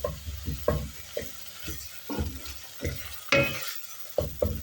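A spoon stirring carrots and onions frying in oil in a pot, knocking and scraping against the pot in irregular strokes, over a sizzle.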